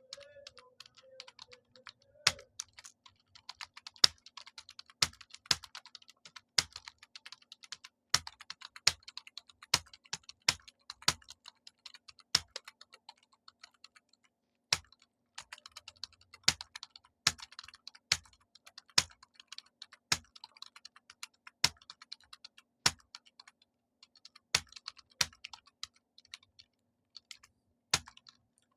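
Computer keyboard being typed on at a steady pace: quick light key clicks with a louder stroke every second or so, easing off briefly about halfway through.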